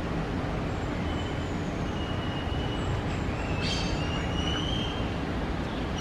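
Steady low background rumble, like distant road traffic, with thin, high drawn-out whistles over it and a short chirp about halfway through.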